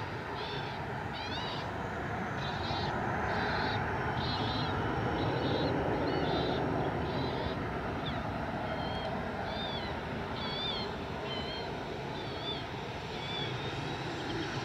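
McDonnell Douglas MD-82's twin rear-mounted Pratt & Whitney JT8D turbofans at takeoff power as the jet climbs away, a steady rumbling jet noise that swells a little about halfway through and then eases off. Short high chirps repeat about twice a second over it.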